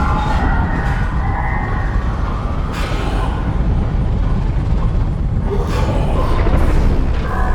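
Film sound effect of an alien spaceship: a heavy, continuous low rumble with wavering, siren-like tones rising over it in the first second or so and again near the end, and a few brief hissing surges.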